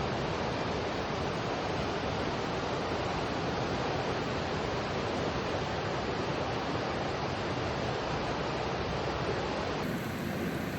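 Steady rushing of a mountain stream's flowing water, an even hiss with no distinct events. About a second before the end it changes abruptly to a thinner steady rush.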